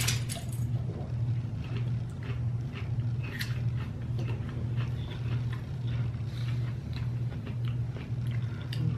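People biting and chewing crisp Asian pear slices: faint, scattered crunching clicks, a cluster of them right at the start, over a steady low hum.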